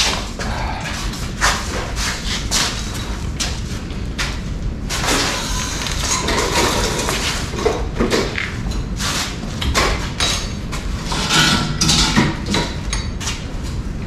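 Irregular clanks, knocks and clicks of hand tools and metal parts being worked at a car's front wheel hub, with no steady rhythm.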